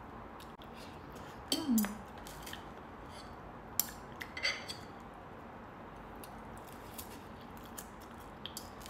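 Knife and fork clinking and scraping against a plate in a few short bursts, the loudest about one and a half seconds in, near four seconds and around four and a half seconds.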